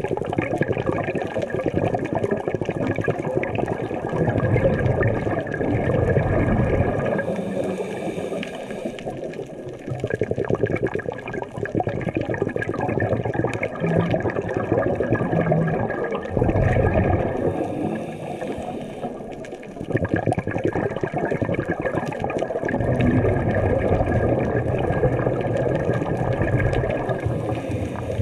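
Underwater water noise on a submerged action camera: a dense rushing and gurgling of water that swells and eases every few seconds as the camera moves.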